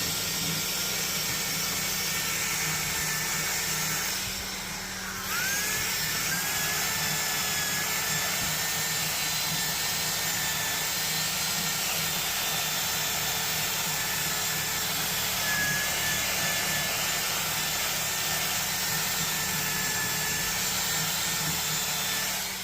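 Power tool spinning a rotary brush that scrubs a carved wooden 3D relief: a steady high motor whine over a rough hiss. It dies down about four seconds in and spins back up with a rising whine a second later.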